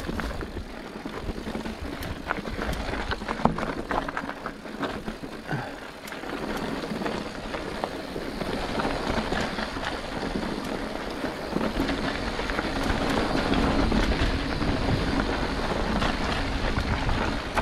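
Mountain bike rolling over a rocky dirt trail: tyres crunching on gravel with sharp clicks and knocks of stones and bike rattle, then a steadier rushing noise that grows louder from about six seconds in, wind on the microphone mixing with the tyre noise.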